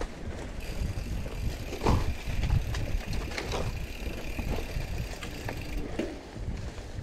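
Mountain bike rolling along a dirt trail: low tyre and wind rumble with knocks and rattles from bumps, the loudest about two seconds in. A high steady buzz starts about half a second in and stops near the end.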